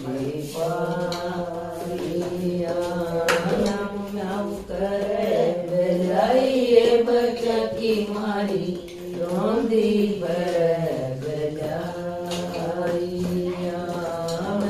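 A group of women singing a Haryanvi devotional bhajan with no instruments, holding and bending long sung notes in a chant-like melody.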